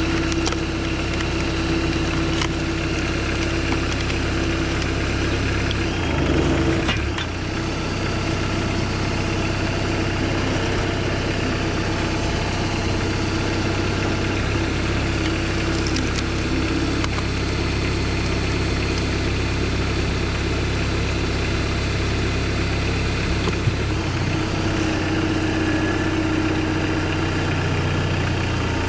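Homemade tractor's engine running steadily while driving a hydraulic log splitter, with a brief surge and change in the engine note about six seconds in and another shift in the note near twenty-four seconds.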